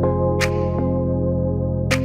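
Background music: soft synthesizer chords with a steady bass, and a crisp cymbal-like hit about half a second in and again near the end.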